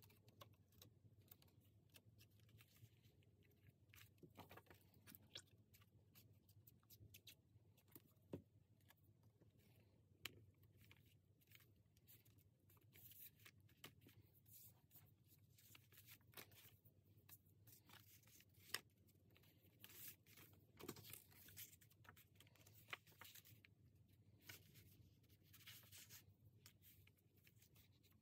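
Faint paper handling: photo prints and journal pages rustling and sliding under the hands, with scattered light taps and clicks as a picture is pressed flat onto the page.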